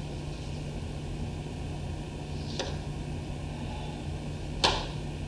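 A pause on stage: steady low hum of the theatre room and recording, with a faint click about halfway through and a sharper knock near the end.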